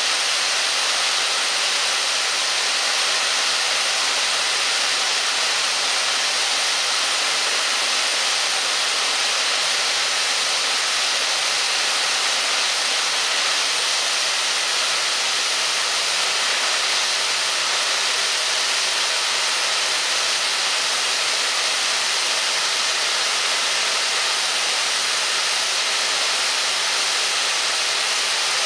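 Steady hiss of steam from the standing LNER A1 Pacific No. 60163 Tornado, an even rushing sound with no exhaust beats.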